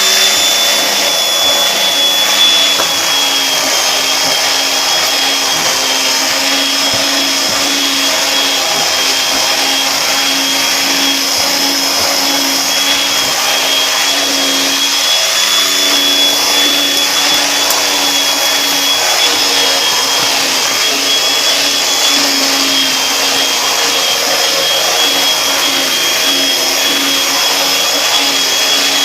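Vacuum cleaner running steadily with a high whine, its pitch wavering slightly.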